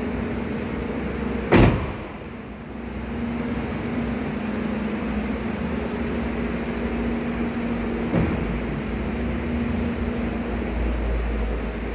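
A Hyundai H350 van door shutting with a single loud thump about a second and a half in, then a faint click near eight seconds, over a steady low hum.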